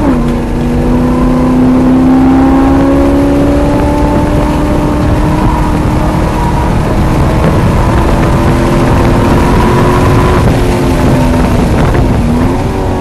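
Chevrolet C5 Corvette Z06's LS6 V8 at full throttle, heard from inside the cabin with tyre and wind noise. Right at the start the engine note drops at an upshift, then climbs slowly as the car pulls through the gear. Near the end it dips briefly and rises again.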